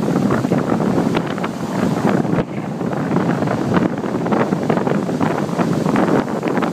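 Strong wind buffeting the microphone, over large storm waves breaking and splashing against a concrete lakefront seawall.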